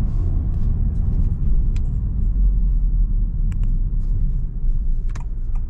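Steady low rumble inside the cabin of an FL5 Honda Civic Type R on the move: engine and road noise while driving, with a few faint ticks.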